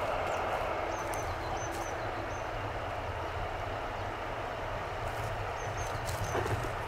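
DR class 118 (V 180) diesel-hydraulic locomotive running steadily with a low engine drone as it rolls slowly toward the listener at the head of a timber train. Small birds chirp briefly a few times.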